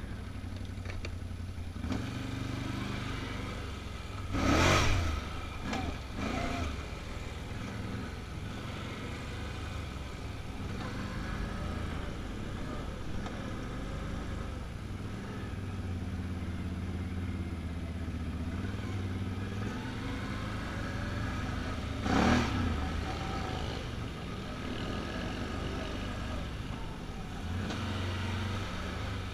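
Can-Am Outlander ATV engine running and pulling under changing throttle as it is ridden over rough dirt trail. Two brief loud rushes of noise cut across it, a few seconds in and again about two-thirds of the way through.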